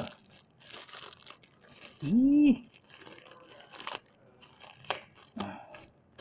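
Crinkling and tearing of packaging as a wrapped charging cable from a trimmer kit is unwrapped by hand, with scattered small clicks. A short hummed vocal sound, rising then falling, about two seconds in.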